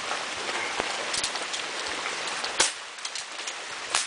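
Two sharp shots from a .22 CO2 pellet pistol fired empty, a little over a second apart, to load the power valve after a fresh CO2 cartridge. Steady rain falls throughout.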